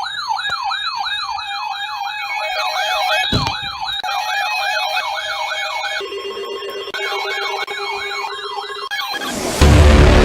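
Electronic emergency-vehicle siren in a fast yelp, rising and falling about three times a second. It breaks for about a second to a steady lower tone, then resumes. Near the end a much louder, rumbling blast comes in.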